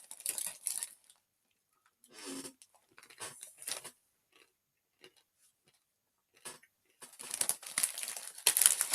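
Dry, uncooked instant chicken ramen noodles being crunched and chewed in several short bursts with pauses between.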